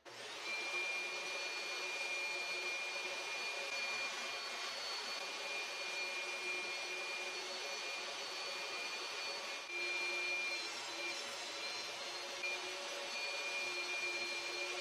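Table saw motor switched on and running with a steady high whine while a round wooden blank is turned by hand over the blade in a clamped square jig.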